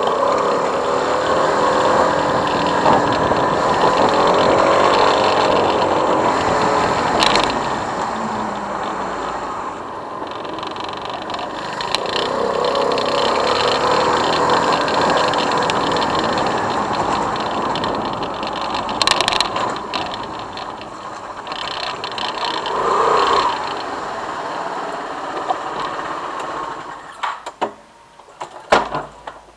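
Motorcycle engine running under way, its pitch rising and falling with the throttle over wind and road noise. Near the end the engine sound drops away and a few sharp clicks follow.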